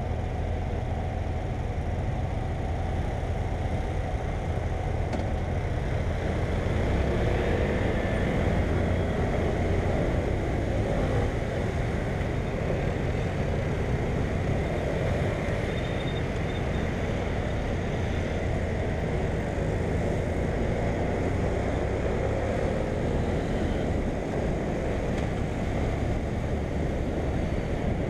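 BMW F800GS parallel-twin engine running steadily as the motorcycle is ridden, mixed with road noise, a little louder for a few seconds early on.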